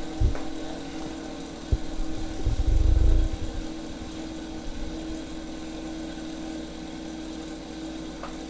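Steady machine hum on one even tone, with a few low thuds and a stretch of low rumbling in the first three seconds, then the hum alone.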